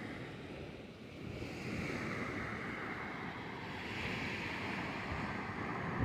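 Surf breaking and washing up a sandy shore: a steady rushing of waves that eases about a second in and swells again near the end.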